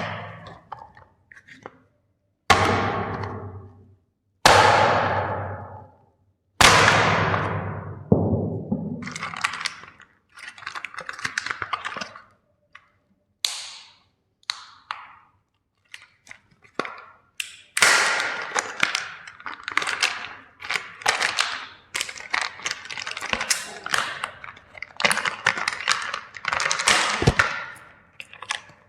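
Plastic toy trains and packaging being handled and broken. Three sharp thuds with ringing, fading tails come in the first seven seconds, followed by long runs of quick cracks and crackles.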